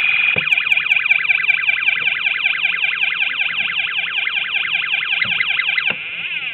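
Electronic siren from a DIY soldered sound-effect kit: a fast rising-and-falling wail, about four sweeps a second, that changes to slower, longer sweeps about six seconds in. A steady high electronic tone sounds along with it.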